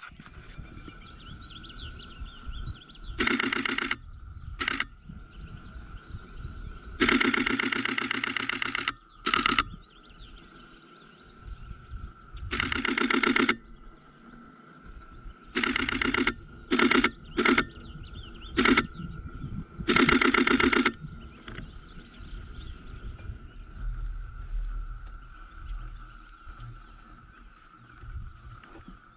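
Digital SLR shutter firing in continuous-shooting bursts, about ten in all, some single short ones and some runs lasting nearly two seconds.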